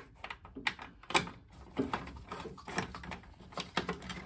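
Irregular light clicks, scrapes and rubbing of a cable being pushed through a rubber grommet and plastic cable guides into a boiler's plastic PCB case by a gloved hand. The sharpest click comes about a second in.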